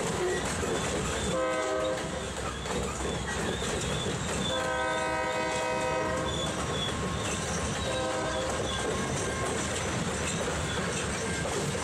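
Freight locomotive's multi-note air horn sounding three blasts, short, long, short, over the steady rumble of a passing freight train.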